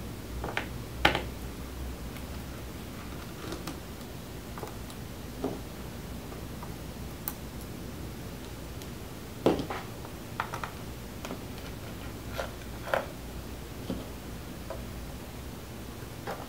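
Scattered light clicks and taps, about a dozen at irregular intervals, from a small Phillips screwdriver and tweezers working the bottom screws out of a Chromebook's case and screws being set down on a parts mat.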